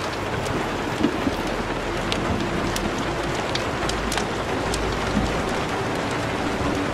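Steady rain-like hiss with scattered crackles and pops. A low rumble swells in the middle, and a faint steady tone joins about two seconds in.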